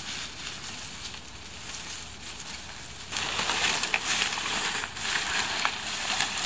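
Footsteps crunching through dry leaves and undergrowth, with brush rustling and small twigs crackling. It gets clearly louder about three seconds in.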